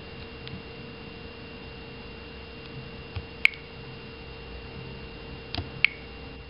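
Sharp clicks as a Samsung Wave phone's touchscreen is tapped: one about halfway through and two quick ones near the end, over a steady hum.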